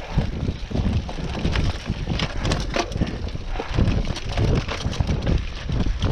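Cyclocross bike rolling over a leaf-covered dirt singletrack: a steady rumble of the tyres and wind on the camera's microphone, broken by frequent sharp clicks and rattles as the wheels crunch through leaves and the bike jolts over bumps.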